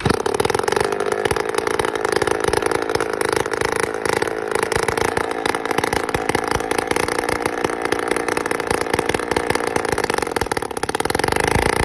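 A small engine or motor running steadily with a fast buzz, holding an even pitch.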